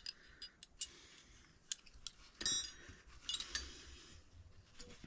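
Steel wrenches being handled and set down: a series of small metallic clicks and clinks, two of them ringing briefly about two and a half and three and a half seconds in.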